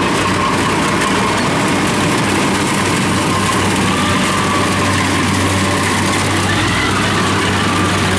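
Kubota DC-70 combine harvesters' diesel engines running steadily under load as they cut rice, with an even, unbroken drone.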